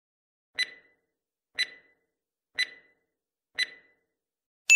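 Four short clock-like ticks, one a second, then a bright ding near the end: a countdown timer sound effect marking the thinking time for a quiz question, the ding signalling that time is up.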